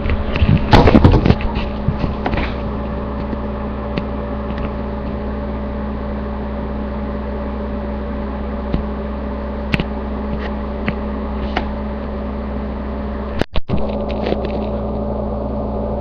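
A few coughs in the first couple of seconds, then a steady mechanical hum with a few faint clicks and a brief dropout about thirteen and a half seconds in.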